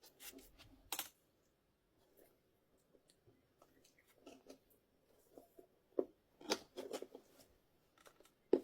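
Hand tools and e-scooter wheel parts being handled: scattered clicks, scrapes and knocks, the sharpest about a second in and near the end.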